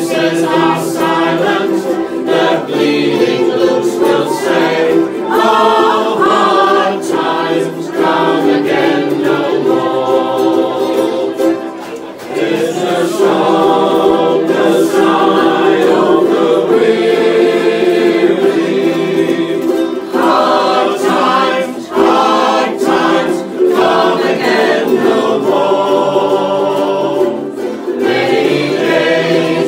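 A ukulele ensemble strumming together while the group sings in unison.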